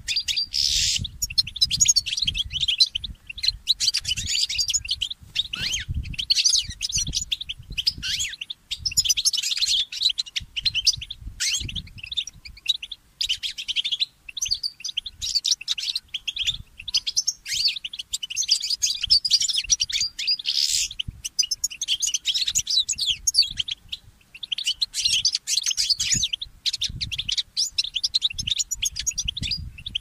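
A goldfinch mule, a goldfinch × canary hybrid, sings a long run of rapid twittering, trilling phrases with short pauses between them. Faint low thuds sound irregularly underneath.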